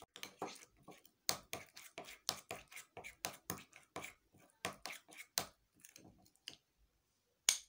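Spoon scraping and clinking against a glass bowl while stirring a thick mashed avocado and turmeric paste, in quick, uneven strokes of about three a second. The stirring stops about six and a half seconds in, then one sharp click near the end.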